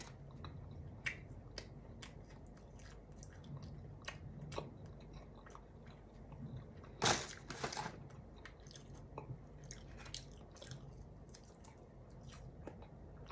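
Close-miked chewing of a thin, crisp almond pretzel: steady small crunches and wet mouth clicks, with two louder crunching bites about seven seconds in.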